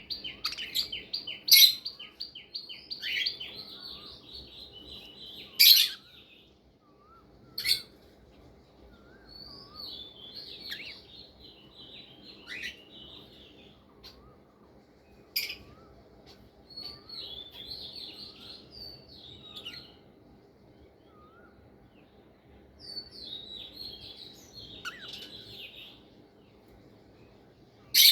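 Budgerigars warbling and chattering in bouts of a few seconds each, broken by several sharp, loud single chirps, with quieter stretches between the bouts.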